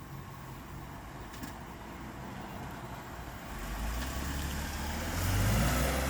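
Police patrol car pulling away from the curb: a low engine rumble and tyre noise growing louder from about halfway in as the car accelerates.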